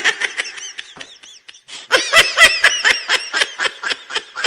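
Laughter sound effect: a rapid, high-pitched cackling laugh in quick repeated bursts, dropping off briefly about a second and a half in, then picking up again louder.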